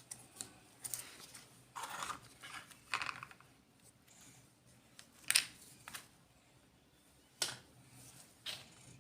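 Plastic packaging crinkling, with small clicks and taps, as miniature fruits and vegetables are unboxed by hand; irregular, with the sharpest crackle about five seconds in.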